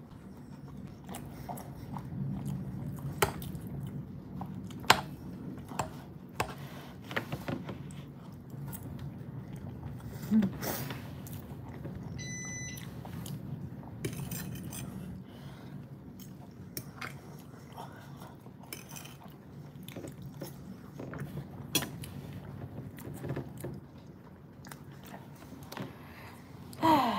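Someone eating from a plate: a metal fork clicking and scraping on a ceramic plate again and again, with close-up chewing of soft chicken and noodles. A short high electronic tone sounds about halfway through, and a brief vocal sound comes right at the end.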